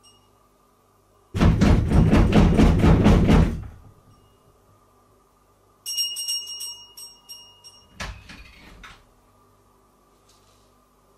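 Heavy rapid knocking on a door, about four blows a second for a couple of seconds; later a bright, high jingle lasting about a second and a half, then a clunk and a short rattle as the door is opened.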